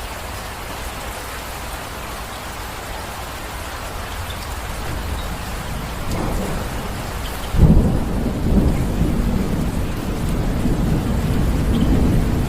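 Steady heavy rain with thunder: a low rumble builds about halfway through, then a sudden loud clap and a rolling rumble run on under the rain.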